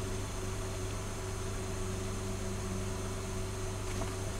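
A 2010 Honda Ridgeline's 3.5-litre V6 idling steadily at about 1,000 rpm, heard from the cab. It is running lean, with high fuel trims, because of a hole in the air intake tube.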